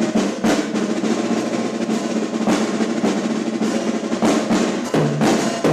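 Acoustic drum kit playing busy snare fills over an electric bass line. The bass holds a low note, then falls into a repeating riff near the end.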